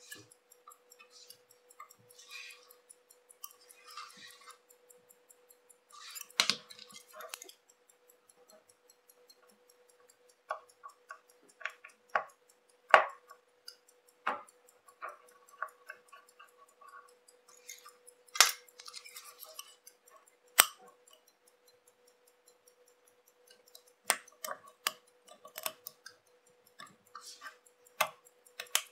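Small watchmaking hand tools working on a chronograph movement: irregular light clicks and taps of metal on metal, with a few brief scrapes, the sharpest taps about thirteen and twenty seconds in. A faint steady tone runs underneath.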